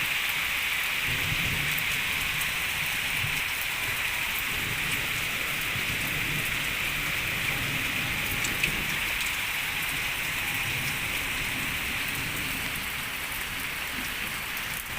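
Steady, not very heavy rain falling, with scattered single drops ticking.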